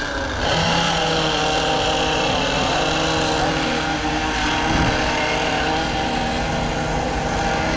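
Engines of several radio-controlled racing boats running steadily together, a mix of held engine tones.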